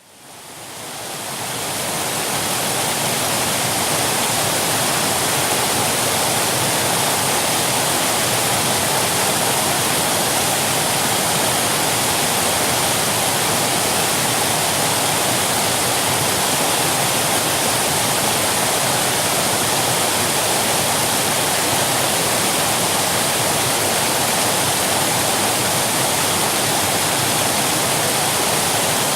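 Waterfall: falling water making a steady, even rush, fading in from silence over the first two seconds.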